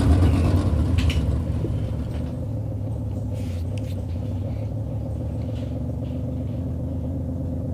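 USRA modified dirt-track race car's V8 engine running at low speed, heard from inside the cockpit. Louder for about the first two seconds, then an even, steady hum.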